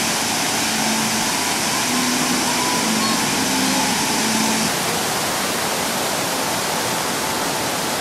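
A large show fountain's water jets spraying and splashing back into the basin: a steady rush of falling water.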